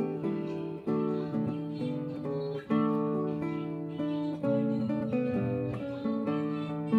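Background acoustic guitar music, a run of plucked notes that each start sharply and fade.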